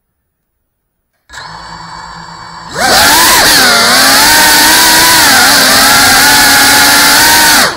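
Brushless motors and propellers of a GEPRC Cinelog 35 cinewhoop drone, heard up close through the onboard camera's microphone. The motors spin up to a steady idle whine about a second in. Then they throttle up to a loud buzzing whine whose pitch rises and dips with the throttle in flight, and they cut off sharply near the end.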